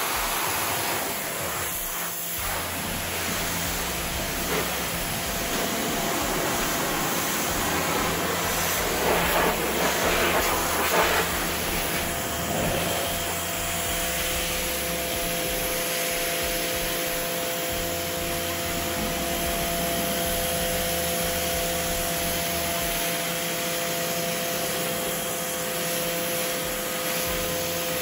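Pressure washer running: the hiss of its water jet spraying against a porch railing and floor, with a steady hum underneath and a louder stretch about a third of the way in.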